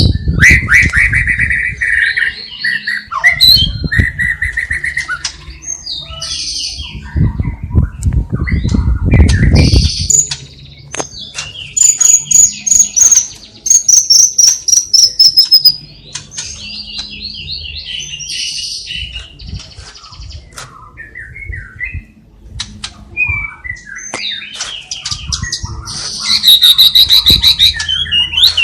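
Songbirds chirping and singing: rapid chirps, buzzy trills and a long falling whistle about twelve seconds in. This is a medley of white-rumped shama song with sparrow and lovebird calls, with bursts of low rumbling noise near the start and around eight to ten seconds in.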